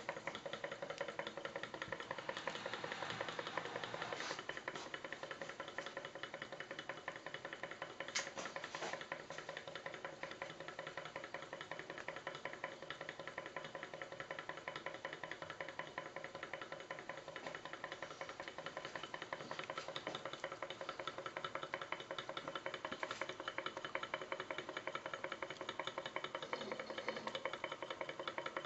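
Small model hot air engine running fast, with a rapid, even mechanical ticking and clatter from its moving parts and a few steady tones under it.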